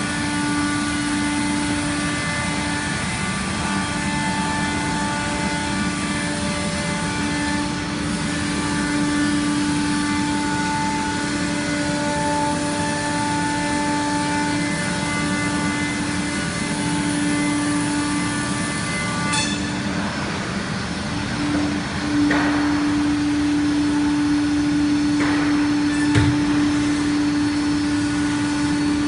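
Uniteam five-axis CNC machining centre running: a steady machine hum with a held whine over it, a sharp click about two-thirds of the way in and a few shifts in the whine after it.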